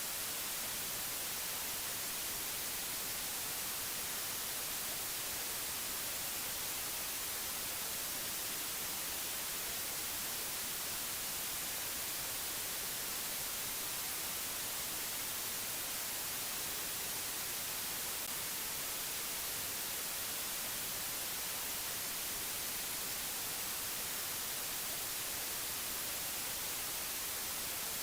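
Steady, unchanging hiss of white noise, brightest in the high treble, with no other sound.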